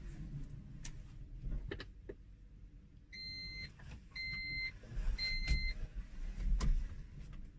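M2 electric car's in-cabin reverse warning beeper, sounding three short, even beeps about a second apart as reverse gear is engaged and the rear-view camera comes on. A few light clicks come before the beeps.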